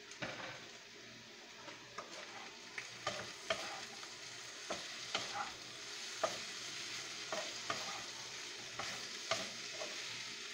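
Parboiled potato and carrot chunks sizzling in oil in a wok while a wooden spatula stirs and turns them. From about two seconds in, the spatula knocks and scrapes against the pan in irregular sharp clicks.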